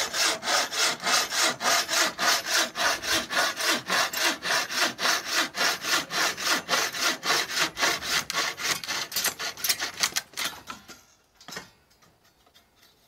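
Hand saw cutting through wood in steady back-and-forth strokes, about four a second, stopping about ten and a half seconds in. A few knocks follow.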